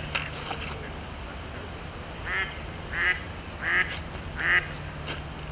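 A duck quacking four times in quick succession, starting about two seconds in, each quack a little louder than the last.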